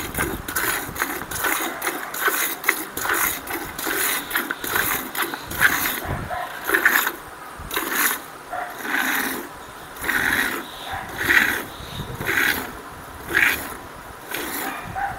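A cow being milked by hand: rhythmic squirts of milk into a pail, quick and close together at first, then slowing to about one squirt a second from about six seconds in.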